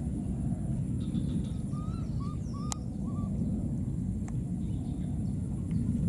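Outdoor ambience with a steady low rumble and a faint, steady high-pitched whine, broken about two seconds in by four quick, short chirping animal calls and a sharp click.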